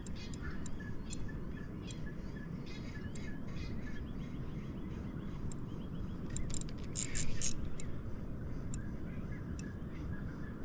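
Outdoor riverside ambience: a steady low rumble with faint bird chirps and scattered light clicks, and a brief louder hiss of noise about seven seconds in.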